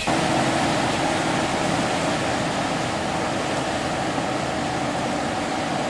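A ferry's engine drones steadily under the rush of its churning wake.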